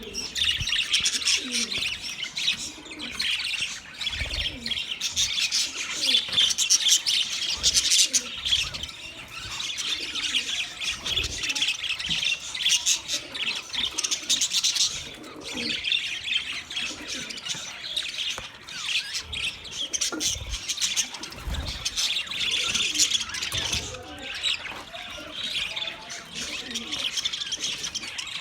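Budgerigars chirping and warbling, a dense, unbroken chatter of quick high chirps.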